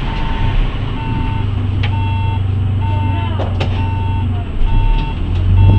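City bus standing at a stop with its diesel engine idling, while its door warning signal sounds a short, steady beep about once a second. A thump comes near the end.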